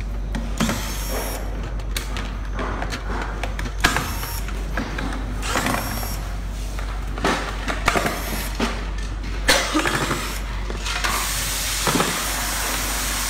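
Handheld power screwdriver backing screws out of the shell of a KingSong KS-16 electric unicycle: scattered clicks and light clatters of tool and plastic. A steady hiss starts about 11 seconds in over a low hum.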